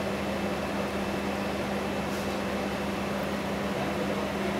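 Window air conditioner running with a steady hum and a low drone.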